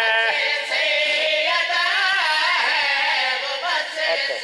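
A man sings a qasida couplet at the microphone in a long, wavering, melismatic line, with many other voices from the congregation rising and crying out alongside it, a heavy, overlapping wall of voices.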